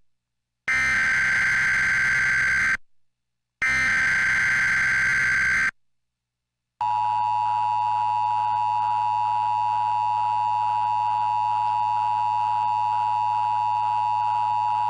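Emergency Alert System SAME header: two screeching bursts of digital data, each about two seconds long with a short gap between them, ending a set of three. About seven seconds in, the steady two-tone EAS attention signal comes on and holds, marking the start of a new emergency alert.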